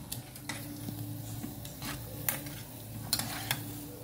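Metal spoon clinking and scraping against an aluminium pot while turning bolinhos de chuva in hot frying oil, with several sharp clinks over a faint sizzle.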